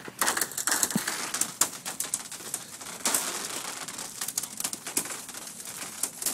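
Footsteps on thin swamp ice, the ice cracking and crunching underfoot in irregular clicks and snaps.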